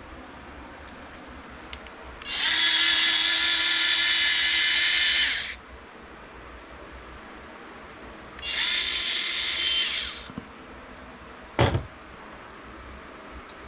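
Small electric screwdriver running in two bursts, about three seconds and then about two, turning the RC car's 2 mm screws, followed by a short knock near the end.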